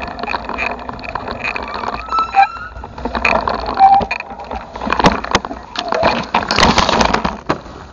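Bicycle clattering over rough, overgrown trail ground: a jumble of rattles and sharp knocks from the bike, with brush rustling and scraping past, heaviest near the end.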